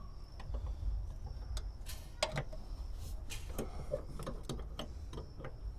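Hand work on fuel-line fittings: scattered small clicks and light metal taps at irregular intervals, over a low steady rumble.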